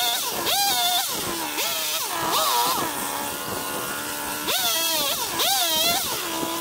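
Two-stroke petrol chainsaw revved up in about five short bursts, dropping back to idle between them, as it cuts into a log.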